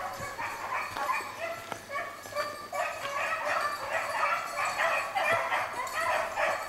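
A pack of beagles baying on a rabbit's trail, the hounds in full chase. Several dogs' voices overlap without a break, a little louder from about three seconds in.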